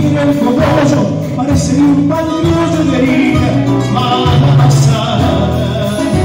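Argentine folk band playing a tonada live: strummed acoustic guitars over electric bass and drums, with singing.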